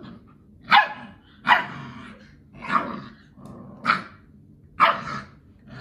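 A puppy and an older dog play-fighting: five short, sharp barks about a second apart.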